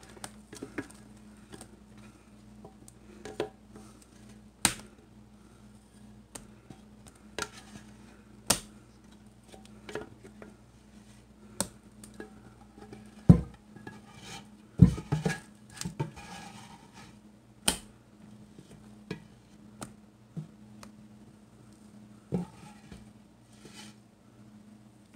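A scraper working thick pastry cream out of a stainless steel pot, with scattered knocks and clinks against the pot; the loudest knocks come about halfway through. A steady low hum runs underneath.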